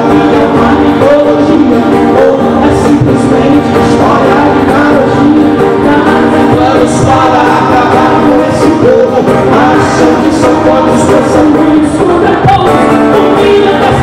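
Live gospel song: a man and a woman singing over acoustic guitars.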